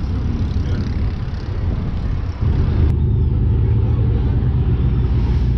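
Passenger riverboat's diesel engine running with a steady low drone, growing louder about two and a half seconds in.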